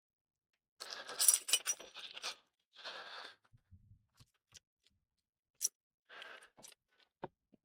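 Metallic clicks and clinks of a repaired Triumph Stag fuel filler cap being worked shut, a quick cluster about a second in and a few sharper single clicks later.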